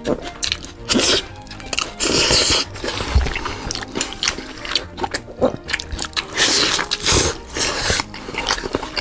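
Background music under close-miked eating: noodles slurped and crispy fried food bitten and chewed in repeated short bursts.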